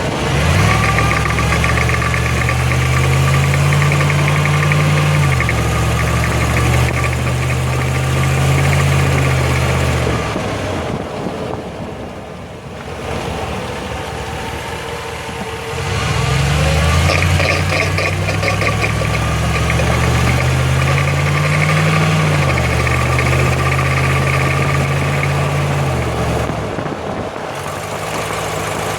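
Driveline of a 2005 Jeep Grand Cherokee with the 5.7 V8 pulling hard uphill, twice, with a lull in between. The engine drone rises and drops back once in each pull. A steady whine rides over the drone, louder on throttle: the differential noise under acceleration.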